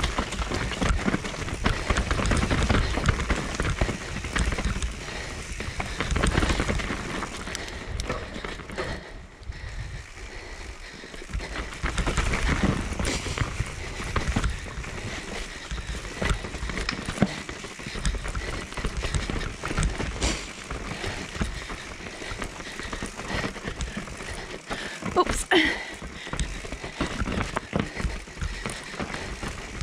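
Mountain bike riding fast down a dirt forest trail: tyres on dirt and roots and the bike rattling over bumps, with many sharp knocks. It goes quieter for a couple of seconds about ten seconds in, and there is a sharper clatter near the end.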